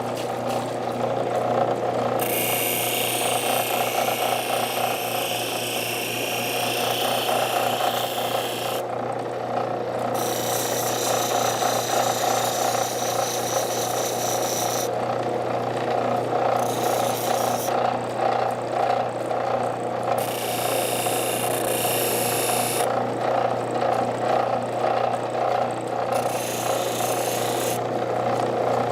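Water-cooled wet grinding wheel running with a steady motor hum. Several times, for a few seconds at a time, a small cast metal piece is pressed against the wheel, adding a harsh grinding hiss as sprue remnants and burrs are ground off.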